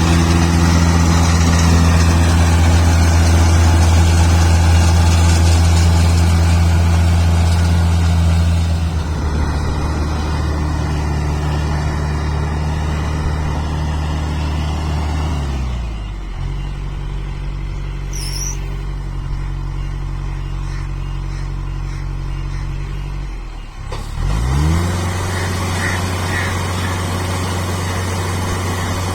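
Kubota rice combine harvester's engine running with a steady drone, loudest for the first several seconds. About halfway through its note slides down and settles, and later it dips briefly and climbs back up to a steady run.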